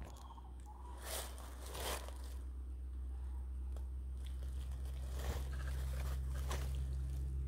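A few short rustles and crinkles of plastic bags and dry leaves as a seated person shifts about, over a steady low rumble.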